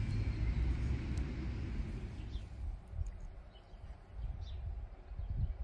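Outdoor ambience: a low, uneven rumble, louder for the first couple of seconds, with a few faint bird chirps in the second half.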